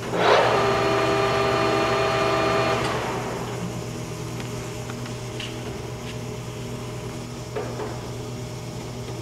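Clausing Colchester 18-inch gap-bed engine lathe running at about 495 RPM: a steady gear whine over the motor hum. It is louder for the first three seconds, then eases to a quieter steady run, with a light click near the end.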